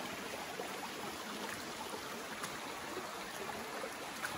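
Small mountain creek running over rocks, a steady even trickle and rush of water. A faint short tap comes near the end.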